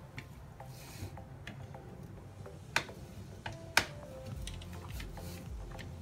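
Small clicks and taps of a screwdriver and fingers working on the plastic frame of a copier's transfer belt unit, with two sharp, louder clicks about three and four seconds in.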